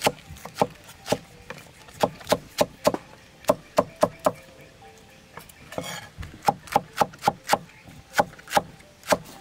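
Steel cleaver chopping cabbage on a wooden chopping block: sharp knocks about three a second, with a pause of a second or two just after the middle.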